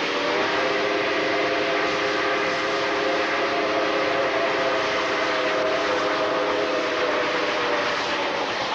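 Steam locomotive chime whistle blown in one long blast of about eight seconds, a chord of several notes held steady and sagging slightly in pitch as it is shut off, over the continuous running noise of the train.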